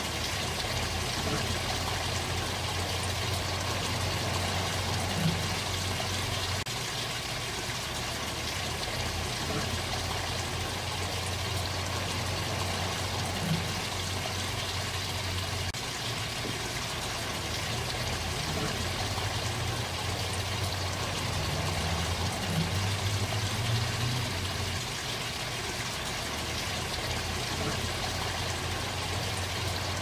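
Backyard pond waterfall: water spilling steadily over a rock ledge and splashing into the pond, a continuous chuckling trickle, with a low steady rumble underneath.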